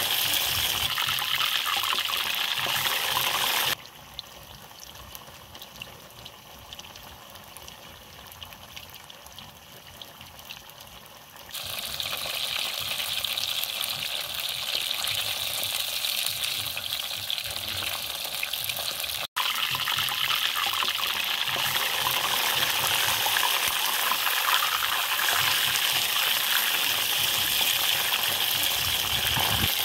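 Chicken pieces deep-frying in hot oil in a wok, a steady dense sizzle. From about four seconds in to about twelve the sizzle is much quieter, then it comes back loud, with a brief cut-out a little after the middle.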